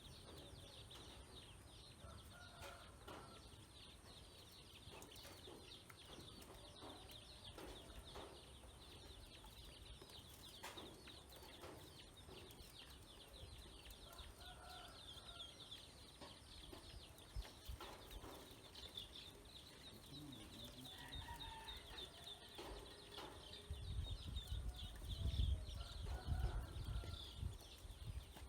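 A brood of ducklings peeping continuously, a dense stream of high chirps, with a few lower calls mixed in. A louder low rumbling noise comes in near the end.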